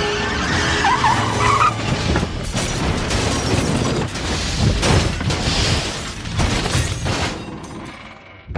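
Film sound effects of a large van: its tyres squeal about a second in, followed by a run of crashes and hard impacts as it skids and slams through the street. The sound fades down near the end.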